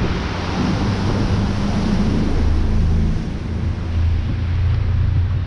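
A small river cruise boat's engine running with a steady low hum, under the wash of water along the hull and wind buffeting the microphone.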